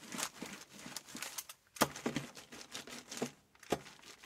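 A large brayer rolled back and forth over scrap paper to clear paint off the roller, the paper crinkling and crackling under it in repeated strokes, with a few sharper crackles.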